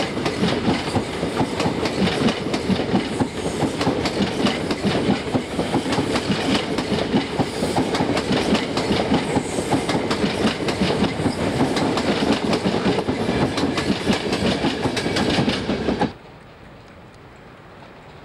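InterCity passenger coaches rolling past close by, the wheels beating out a steady clickety-clack over the rail joints under a loud rumble. The sound cuts off suddenly about sixteen seconds in, leaving only a faint steady background.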